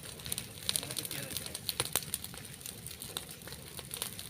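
Wildfire burning through vegetation, crackling with many irregular sharp snaps and pops over a low rumble.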